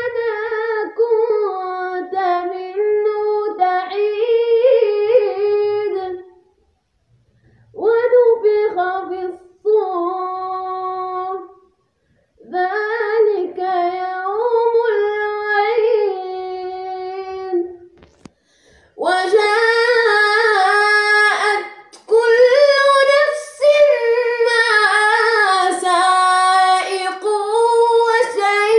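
Quran recitation in a melodic tajweed style by a high voice, sung in long drawn-out, ornamented phrases separated by short pauses. From about two-thirds of the way in the voice grows louder and brighter.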